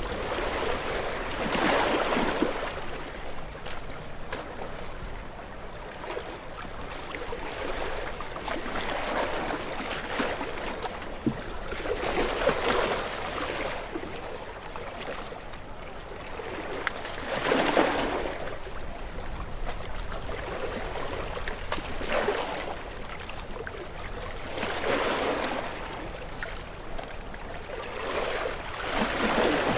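Ocean waves breaking on a rocky shore, with a surge of rushing surf every few seconds over a steady wash of water. The strongest break comes about two-thirds of the way through.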